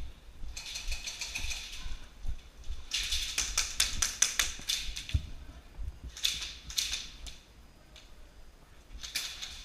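Airsoft guns firing short bursts of rapid clicking shots, with the densest burst in the middle.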